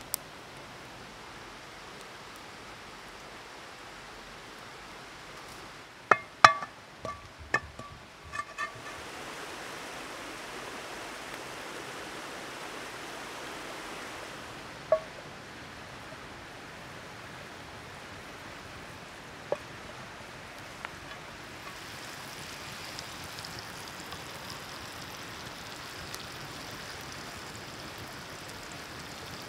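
Steady rush of a forest stream, with a quick run of sharp knocks and clicks about six to nine seconds in and a couple of single clicks later. Near the end a soft sizzle joins in as a slice of bread fries in fat in a pan over a wood fire.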